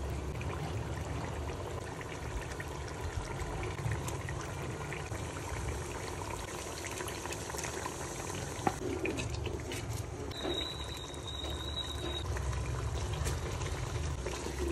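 A thin tomato and onion masala bubbling at a simmer in an aluminium pot, with a few light knocks.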